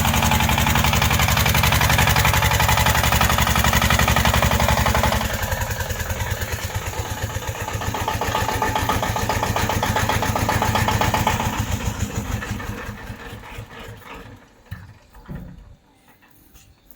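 A mini tracked tractor's engine running with a rapid, even beat. It gets quieter about five seconds in, then dies away from about twelve seconds, with a couple of knocks near the end.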